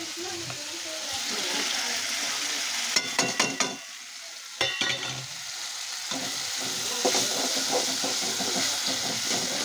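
Chopped tomatoes frying and sizzling in hot oil and onion masala in a steel pan. A few sharp metallic clinks of the steel bowl and spoon against the pan come about three seconds in and again about a second and a half later, as the tomatoes are tipped in and stirred.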